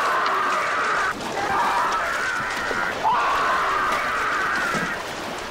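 A man screaming in agony as a shark bites into him: three long, wavering screams in a row, the last fading toward the end.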